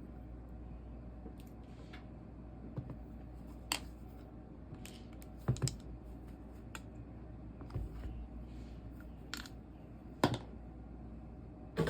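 Irregular light clicks and knocks of small hard objects being handled and set down, about half a dozen spread out, the loudest near the end, over a steady low hum.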